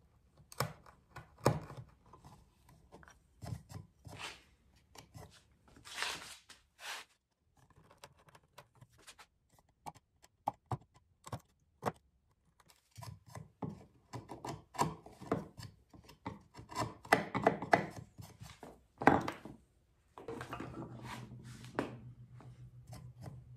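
Hand chisel paring a hinge mortise in a walnut box edge in very small bites: irregular clicks and short scrapes of steel cutting and shaving hardwood.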